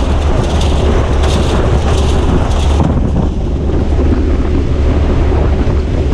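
Steady roar of a transport aircraft's engines and the slipstream rushing past an open jump door, with a deep rumble underneath. During the first three seconds a regular sharp slapping comes about once every 0.7 s, then stops.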